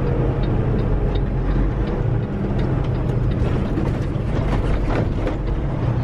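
Semi truck's diesel engine running steadily with road noise inside the cab, plus a light ticking about twice a second.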